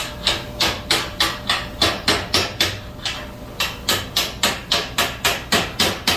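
Hammer blows struck in a steady rhythm, about three a second, with a short pause about three seconds in.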